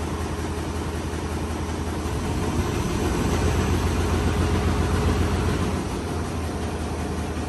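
Engine of a lifting machine running steadily under a heavy lift, getting louder and working harder from about two and a half seconds in until about six seconds, then settling back to a steady run.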